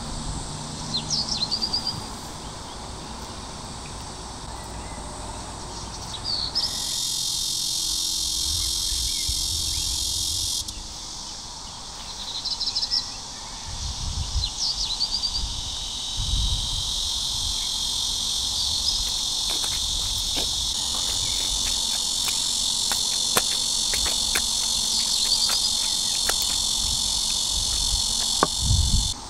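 Steady high-pitched insect chirring. It starts abruptly about seven seconds in, drops out for a second or so, then carries on. A few short, high chirps and occasional low thumps sound over it.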